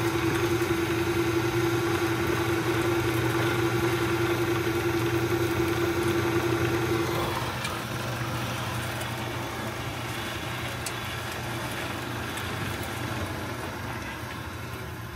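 Electric motor of a LiftMaster sliding-gate operator running, driving the gate open along its chain through a belt and gearbox: a steady mechanical hum with one strong constant tone. About seven seconds in, the tone fades and the level drops, leaving a quieter running sound.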